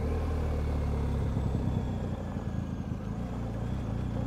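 BMW R1250GS Adventure's boxer-twin engine running at low road speed, a steady low engine note that blurs for a couple of seconds in the middle and steadies again near the end.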